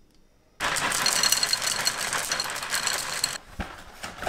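Nesquik chocolate cereal balls poured from the box into a ceramic bowl: a dense rattle that starts suddenly about half a second in and stops about three seconds later, followed by a single knock.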